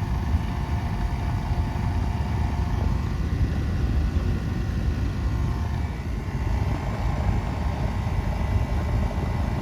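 Residential central AC outdoor condensing unit running steadily, its condenser fan and compressor giving a low, even drone with a faint steady hum above it, just restarted after its plugged condenser coil was cleaned.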